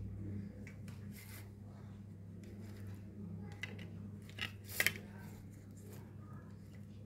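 A steady low hum with a few small clicks and rustles scattered through, the loudest a sharp double click just before five seconds in.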